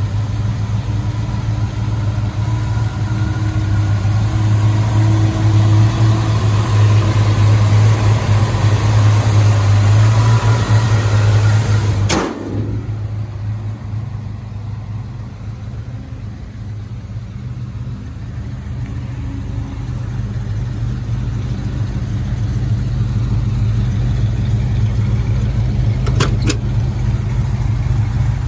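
1972 GMC C10 pickup's engine idling steadily. It is louder for the first twelve seconds, then a sharp knock comes and the sound is quieter. A brief double click comes about two seconds before the end.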